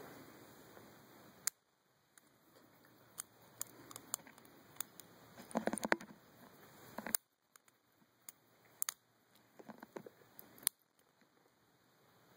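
Lock pick and tension wrench working the keyway of a four-pin Chateau padlock with three spool pins during single-pin picking: faint, irregular small metallic ticks and clicks, with a busier stretch of scratching about halfway through.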